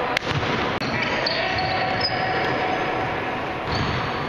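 Live game sound in a large gym: a basketball bouncing on the hardwood court and players' voices calling out, with a sharp knock about a quarter second in.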